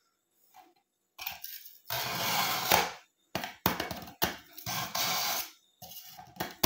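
Steel kitchen knife blade drawn repeatedly through the medium slot of a BAUM ZINDECH ZRT-400 manual pull-through sharpener: about five rasping metal scrapes, each lasting roughly half a second to a second, the first and longest about two seconds in.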